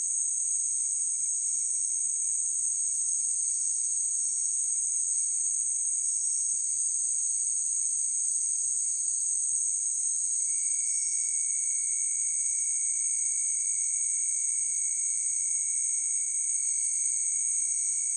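Chorus of crickets trilling steadily in a continuous high-pitched drone; a second, lower trill grows louder about halfway through.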